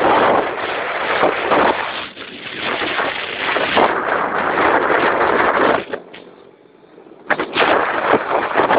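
Wind rushing and buffeting over the microphone of a camera riding on a moving motorbike, with the ride's road and engine noise beneath it. It drops almost away for about a second around six seconds in, then comes back.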